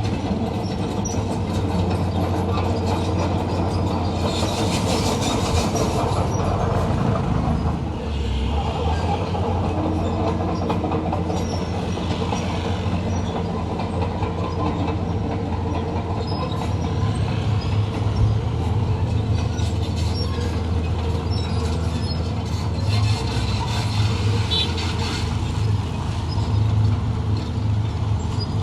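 Heavy diesel machinery running steadily under load, a deep engine drone with a continuous metallic clatter over it.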